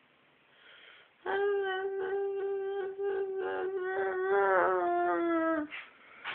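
A dog howling one long held note, starting about a second in. The pitch stays steady while the tone of the howl changes and wavers partway through, and it breaks off shortly before the end.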